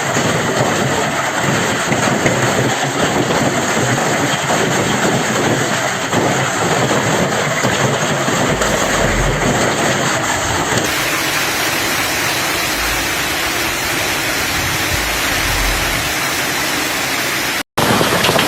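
Steady, dense roar of a heavy storm downpour, with low rumbles of wind buffeting the microphone now and then. The sound changes abruptly about 11 seconds in and drops out for a moment near the end.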